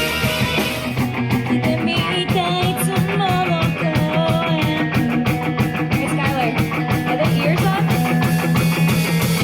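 Rock-style pop song with electric guitar and a steady beat, played loud through a stage PA. A wavering melody line comes in about two seconds in.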